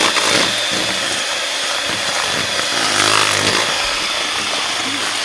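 Sunbeam electric hand mixer running steadily, its beaters churning a thick sweet potato and cream cheese mixture in a plastic bowl.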